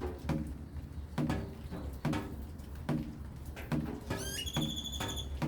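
Water dripping in a steady rhythm, a little more than one drop a second, each drop striking with a sharp tick and a short ringing tone, over a low hum. About four seconds in, a high whistle glides upward and then holds for about a second.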